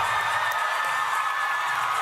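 Crowd cheering and applauding: a steady wash of clapping and voices.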